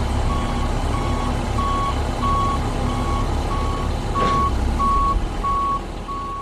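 Truck's reversing alarm beeping evenly, about three beeps every two seconds, over the low rumble of its engine. A single short knock comes a little past four seconds in, and the sound begins to fade near the end.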